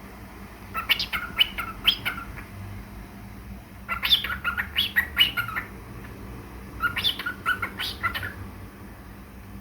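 Small pet parrot chirping and whistling in three quick, chattering phrases about three seconds apart.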